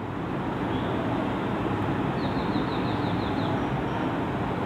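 Steady rumbling background noise, with a quick run of about eight high chirps about two seconds in.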